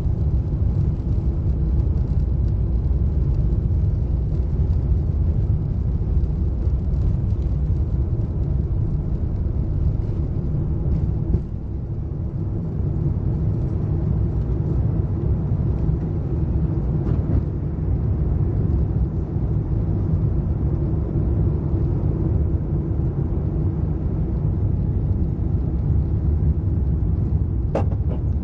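Airbus A350-900's Rolls-Royce Trent XWB engines at takeoff thrust, heard from inside the cabin: a loud, steady low rumble with a hum, easing slightly about eleven seconds in as the wheels leave the runway and carrying on through the climb. A brief sharp click near the end.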